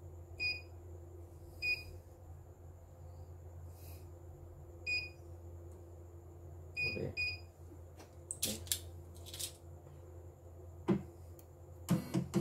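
Control-panel keypad of a CNY computerised embroidery machine beeping as its buttons are pressed: five short beeps over about seven seconds, the last two close together. A few light clicks and knocks follow near the end.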